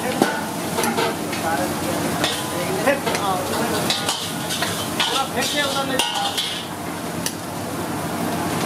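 A metal ladle stirring soup in a hot wok, with the liquid sizzling in the pan and repeated sharp clinks and scrapes of the ladle against the wok.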